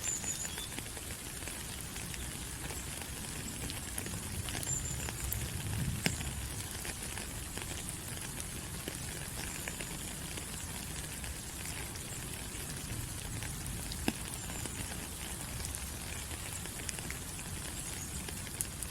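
Steady rain falling through rainforest foliage, an even hiss with a few sharper single drop hits. Faint short high chirps come now and then.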